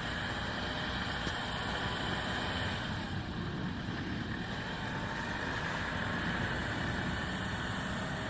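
Off-road vehicle engine running steadily, with a steady rumble and hiss, as the vehicle drives a detour around a rutted forest track.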